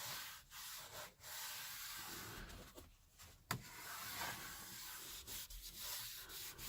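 Cloth rubbing in repeated wiping strokes over the car's headliner crossbar trim, with short breaks between strokes and a single sharp click about halfway through.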